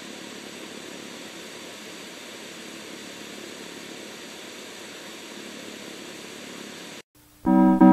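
A steady, even droning noise that cuts off abruptly about seven seconds in, followed just before the end by the start of loud brass music.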